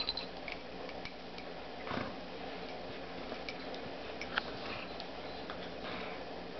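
Two dogs, an Australian Shepherd puppy and a Golden Retriever, play-wrestling quietly with no growls: scattered faint, irregular clicks and scuffles of mouths, paws and collars, with a bigger scuffle about two seconds in, over a steady low room hum.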